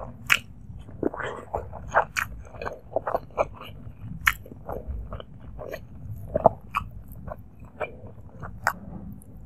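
Close-miked chewing of hand-fed mouthfuls of rice and egg in curry gravy: irregular wet mouth clicks, about two a second.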